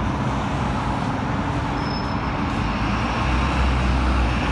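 Steady city road traffic passing close by, cars and a diesel city bus. The bus's low engine rumble grows louder from about three seconds in as it draws alongside.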